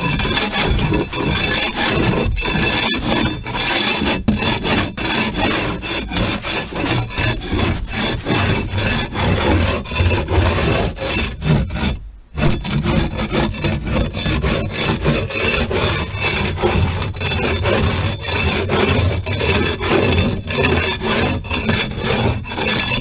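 Long-handled floor scraper's blade scraping across a fiberglass boat floor in repeated strokes, stripping leftover carpet rubber, glue and grime. It stops briefly about halfway through.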